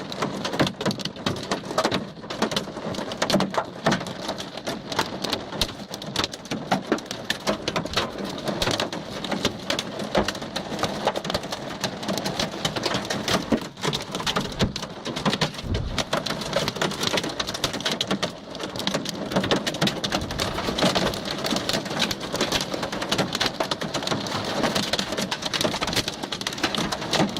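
Hail falling heavily: a dense, continuous rattle of hailstones striking hard surfaces, with a brief low rumble about sixteen seconds in.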